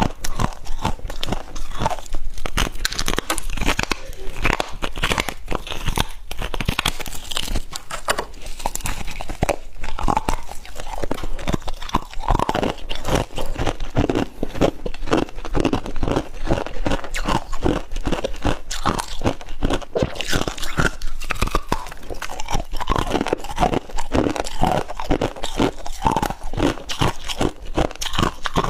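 Someone biting and chewing a mouthful of freezer frost, a rapid run of loud, crisp crunches that keeps on without a break.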